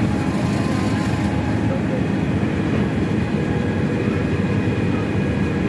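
Open-sided tourist tram in motion: a steady low rumble of its engine and running noise heard from the passenger carriage.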